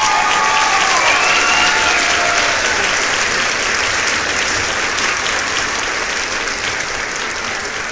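Crowd applause and cheering laid over the catch as a sound effect: dense clapping that starts suddenly just before and carries on steadily, easing off slightly near the end, with a few rising whoops in the first two seconds.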